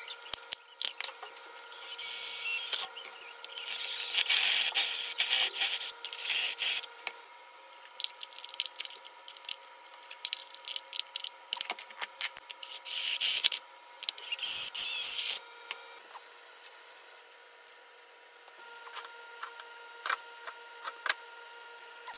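Rubber plucker fingers being pushed through the holes of an aluminium feather plate and their nuts tightened with a wrench: several bursts of rubbing and squeaking, with scattered clicks and metal taps, over a faint steady hum.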